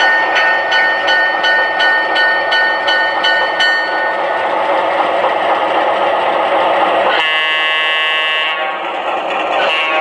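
Sound system of an Atlas O-scale GE 44-tonner model diesel locomotive running on the track: its bell rings about three strokes a second for the first few seconds over a steady diesel engine sound and wheel rumble, then a horn blast sounds for just over a second a little past the middle.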